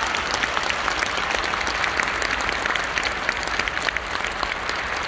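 Large concert audience applauding, a dense steady patter of clapping just as the song's last held note dies away.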